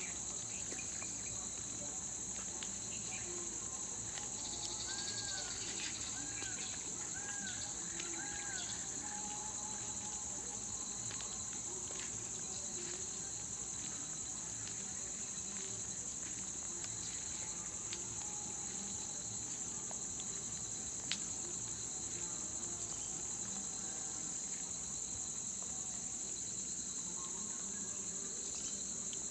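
Steady, high-pitched chorus of insects buzzing without a break. A bird gives four short repeated notes about a second apart, starting about five seconds in.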